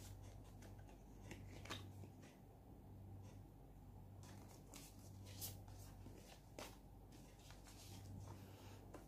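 Faint rustling and light scraping of an Apple Watch box's cardboard trays and paper inserts being handled, with a few soft clicks and rustles scattered through, a cluster of them about halfway through.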